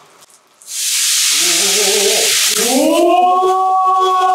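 A thick piece of meat sizzling hard on a hot pan, the sizzle starting suddenly about a second in. Voices join with a long, rising exclamation of admiration that is held to the end.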